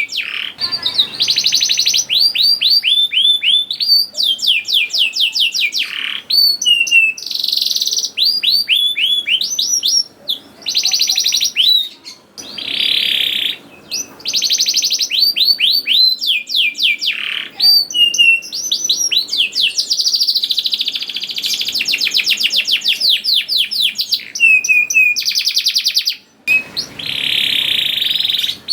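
Domestic canary singing: fast series of repeated down-slurred chirps alternating with dense, buzzy rolled trills, in phrases broken by short pauses.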